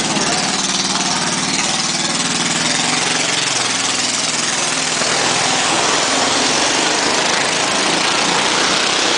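Small go-kart engine revving hard as the kart drives around the wall of a wooden motordrome, its note shifting in the first seconds and getting louder and rougher from about halfway in.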